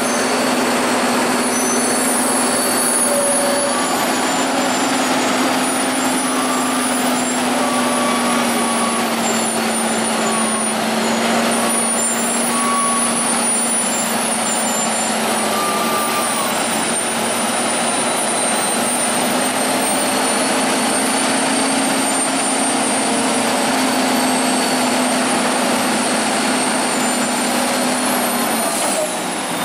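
Volvo heavy truck's diesel engine running steadily at low speed, a held drone whose pitch sinks slightly and rises again, over a constant hiss.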